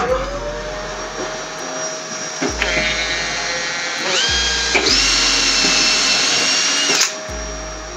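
Makita 18V cordless drill boring into a white laminated board. The motor whines up to speed at the start, climbs higher in pitch in steps through the middle, and cuts off suddenly about seven seconds in.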